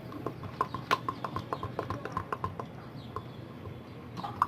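A spoon stirring herbs into oil in a jar, clinking against the jar's sides in quick, irregular light ticks.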